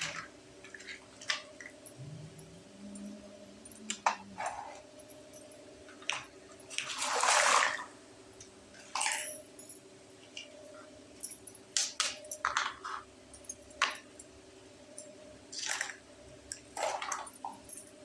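Small plastic toy kitchen pieces being handled: scattered clicks, taps and light rustles, with one longer rustle about seven seconds in, over a steady low hum.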